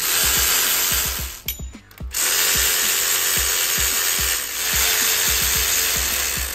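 Cordless ratchet on an extension spinning new 11 mm cylinder head bolts down to snug, not tight. It runs once for about a second, pauses briefly, then runs again for about four seconds with a short dip partway through.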